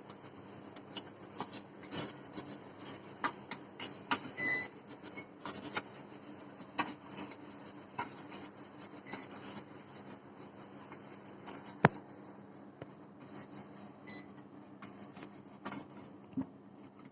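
Oil being rubbed around the inside of a cake tin by hand: irregular rubbing and scraping strokes, with a sharp click about twelve seconds in.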